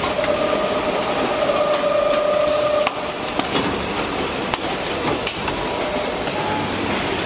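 Running 5-gallon bottled-water filling and capping line: a steady mechanical din with scattered clicks and knocks. A steady whine sounds over it for the first three seconds or so, then cuts off.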